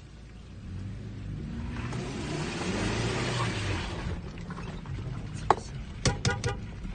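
Nissan Patrol 4.2 diesel engine working under load, its note rising and falling, with a rushing noise swelling in the middle. Several sharp knocks follow near the end.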